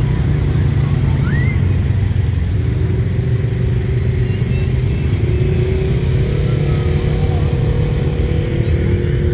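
Side-by-side UTV engines running steadily at low speed, a dense low engine drone with a few engine tones shifting in pitch.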